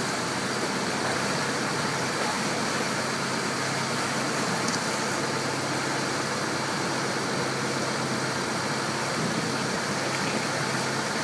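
Water taxi's engine running steadily at cruising speed, a constant low hum, over the rushing of its churning wake.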